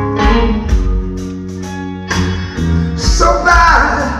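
Live blues band playing: electric guitar with bent notes over bass guitar and a drum kit.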